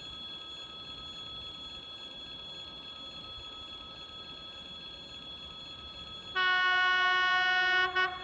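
TEP70BS diesel passenger locomotive's horn sounding one blast of about a second and a half as the train approaches, ending with a brief extra toot.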